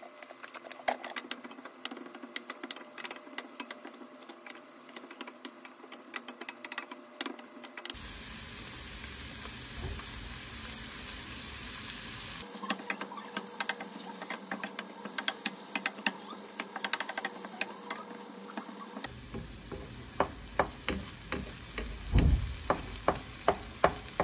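Kimchi fried rice sizzling in a frying pan while a spatula stirs and scrapes it, with small clicks of the spatula on the pan. In the last few seconds the spatula knocks sharply against the pan a few times a second.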